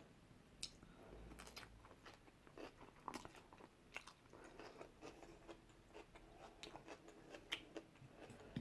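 Faint close-up chewing and crunching of takeaway food, with irregular small mouth clicks and crunches.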